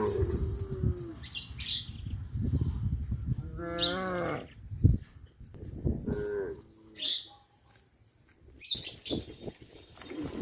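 Cattle mooing: the tail of one moo at the start, a full moo about four seconds in, and a shorter moo about six and a half seconds in.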